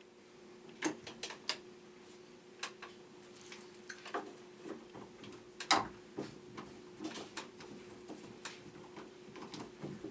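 Irregular small clicks and knocks of hands and a hand tool working metal and plastic parts inside an open shower control valve, the loudest knock about halfway through, over a faint steady hum.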